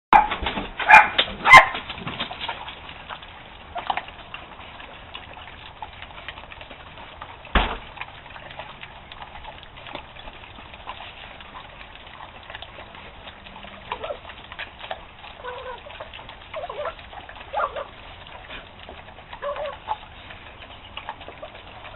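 Dogs eating, with a small Chiweenie giving short, gobbling, turkey-like warning growls to keep the other dogs back; these come in short bursts scattered through the second half. A few loud sharp sounds open the stretch, and there is a single knock about seven seconds in.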